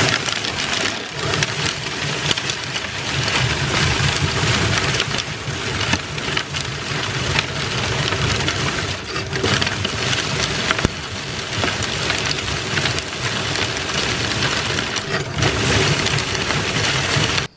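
Bike-pedalled drum thresher running: chains whirling inside the wooden drum beat dry bean plants, a steady dense rush and rattle of pods, stems and beans, with a low hum underneath.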